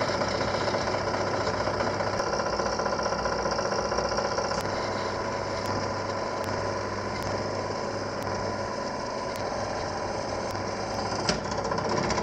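Benchtop drill press running, its twist bit drilling a small hole through a metal bolt clamped in a vise. There is a single sharp click near the end.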